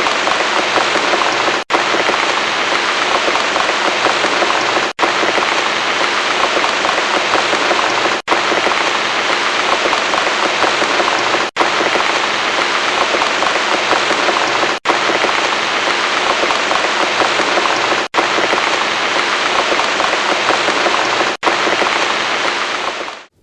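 Steady heavy rain falling, a dense hiss of drops, broken by a very short gap about every three seconds and fading out at the very end.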